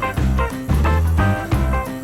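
Background music: upbeat swing-style tune with brass and a steady bass beat.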